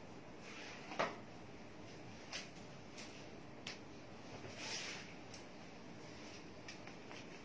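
Faint room tone with a few scattered clicks and knocks, the sharpest about a second in, and a brief soft rustle near the middle.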